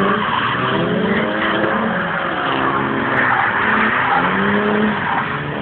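BMW engine revving up and down repeatedly as the car drifts, with the rear tyres squealing and skidding on the tarmac throughout.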